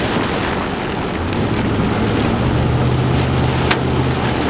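Steady rush of rain and wind around a storm-chase vehicle, with a low hum from its engine underneath and one sharp click near the end.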